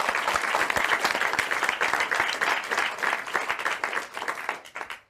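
Applause, many hands clapping steadily, dying away near the end.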